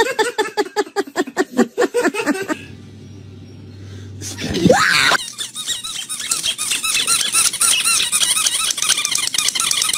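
A quick run of squeaks, then a short lull and a single brief rising-and-falling cry. After that, fast continuous high squeaking as a dog paws frantically at a slab of styrofoam.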